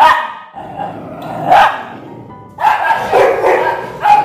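White Pomeranian barking sharply at another dog, with two loud barks about a second and a half apart, over background music.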